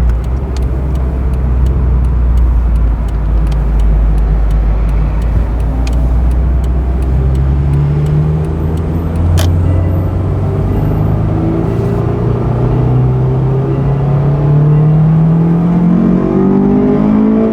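2006 Honda S2000's 2.2-litre F22C1 four-cylinder engine under way: a low, even drone for the first several seconds, then the revs climb steadily from about seven seconds in until near the end as the car accelerates through a gear.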